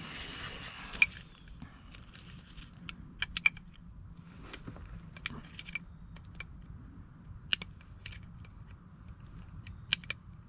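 Small metal parts of a key lock cylinder assembly clicking and rattling as they are handled and fitted together, with scattered sharp clicks, the loudest about a second in, and a brief scrape at the start.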